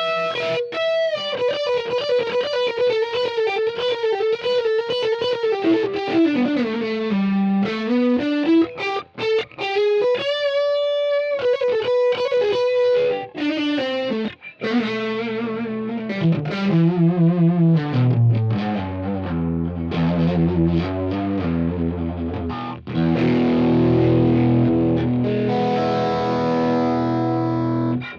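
Sterling JP70D seven-string electric guitar played through a Line 6 POD HD500 with a distorted lead tone. Fast runs and held, vibratoed notes come first; from about two-thirds of the way in the playing drops into lower, heavier riffing and chords.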